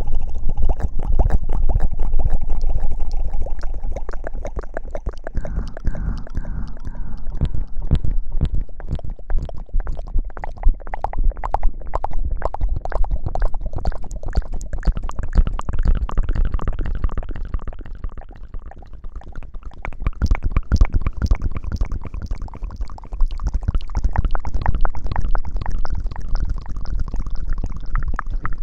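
Close-miked ASMR rubbing and rustling, as in a mock hair wash on the microphone: a dense crackle of small clicks over a low rumble that swells and eases.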